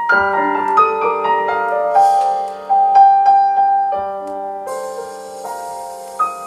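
Piano music played from a vinyl LP on a Kronos Limited Edition turntable through a hi-fi system, single notes and chords ringing one after another. About two-thirds of the way through, a soft high hiss joins in.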